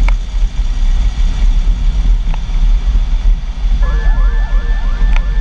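Loud, continuous low rumble of tyre and road noise mixed with wind buffeting, picked up by a camera mounted under a Cadillac Escalade beside its front wheel while it drives on pavement.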